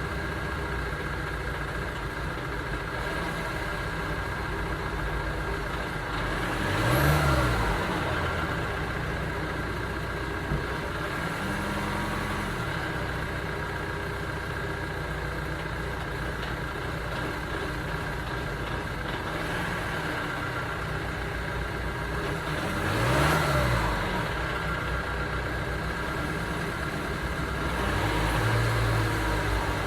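2009 Ford Transit Sport's diesel engine idling, blipped twice with a quick rise and fall in revs, and given a smaller, gentler rev near the end.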